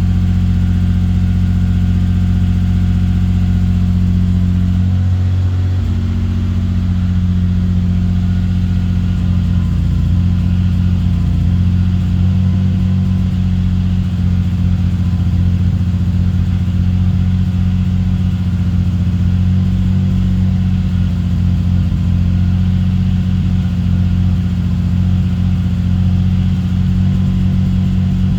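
2023 BMW M3's S58 twin-turbo inline-six running steadily while an ISTA misfire test is run on it, its note shifting briefly about five seconds in.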